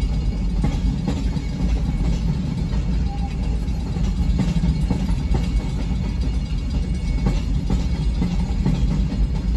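Freight train cars rolling through a road grade crossing: a steady low rumble with irregular clacks of the wheels over the rail joints, heard from inside a car.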